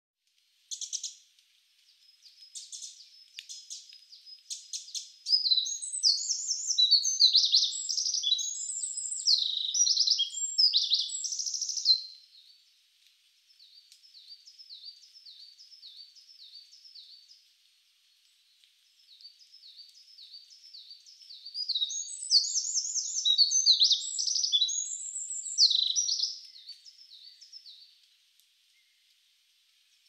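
Wild songbirds singing: two long bursts of fast, varied warbling, the first starting about five seconds in and the second a little after twenty seconds, with softer runs of short repeated chirps between and after them.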